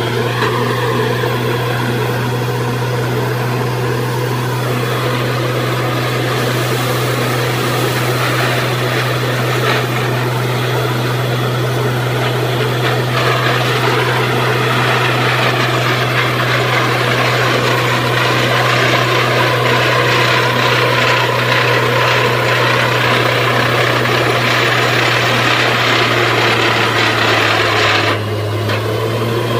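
Truck-mounted borewell drilling rig running steadily under load: a constant deep engine hum with heavy mechanical noise over it. Near the end the higher noise suddenly drops away and the hum carries on.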